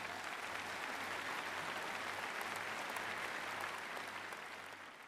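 A large audience applauding, a dense sustained clapping that fades out near the end.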